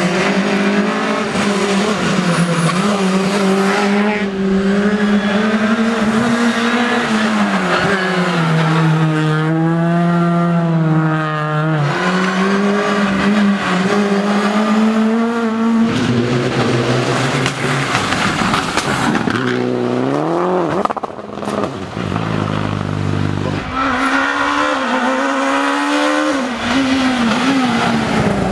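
Rally car engines revving hard as one car after another drives through the stage. The engine note climbs and drops with each gear change and lift of the throttle, and sweeps up sharply a couple of times.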